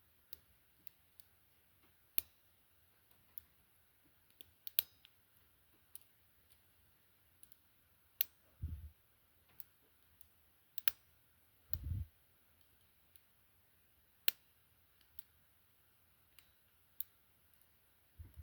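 Irregular small sharp clicks of a lock pick and tension wrench working the pins of a padlock during single-pin picking, with two brief soft low thumps from handling the lock.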